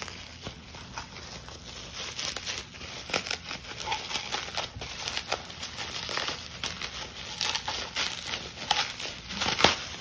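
Bubble wrap and plastic packaging crinkling and crackling as it is handled and pulled open, in many quick irregular crackles, the loudest near the end.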